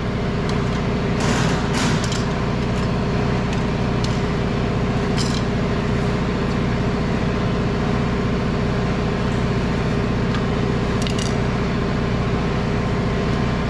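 A steady low mechanical hum with even, unchanging tones, broken by a few brief scuffs: two in the first couple of seconds, one about five seconds in and one about eleven seconds in.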